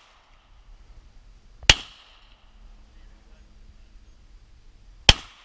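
Two shots from a Glock 22 pistol (.40 S&W), about three and a half seconds apart, each a sharp crack with a short fading tail.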